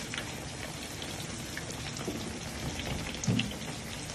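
Breadcrumbed escalope frying in hot oil in a wide pan: a steady sizzle with scattered small crackles and pops. A dull low thump about three seconds in.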